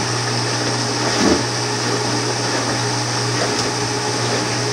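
Kitchen faucet running steadily into a filled sink basin, a constant rushing hiss over a low hum, with a brief knock just over a second in.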